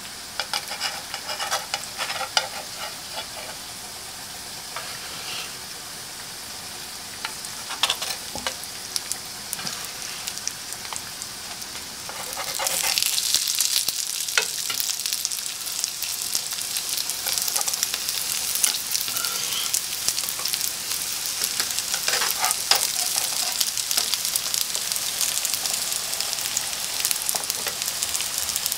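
Veggie burger patties sizzling in hot oil in a nonstick frying pan, with scrapes and taps of a metal spatula as the patties are laid in. The sizzle gets clearly louder about twelve seconds in.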